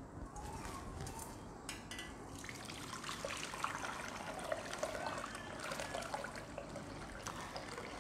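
Juice poured from a steel bowl through a metal sieve into a glass bowl, trickling and splashing steadily. The pour picks up a couple of seconds in.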